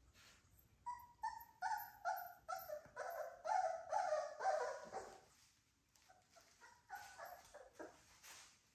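Three-week-old American Bully puppies whimpering and yelping in a run of short high cries, each falling slightly in pitch, about two a second. There is a pause about five seconds in, then a shorter run that ends lower.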